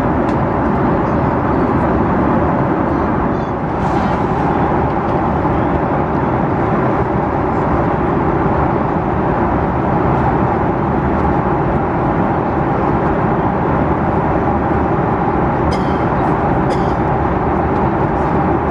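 Steady, loud cabin noise inside an Airbus A330-300 with Rolls-Royce Trent 772B engines: engine and airflow noise, unchanging throughout, with a faint high tick or two near the end.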